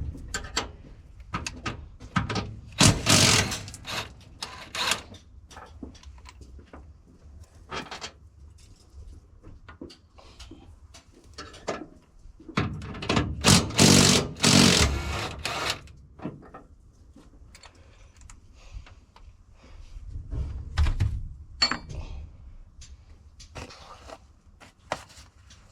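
Metal clanks, knocks and scraping from hand work on farm machinery, with two louder spells of rapid rattling, about three seconds in and again about thirteen seconds in.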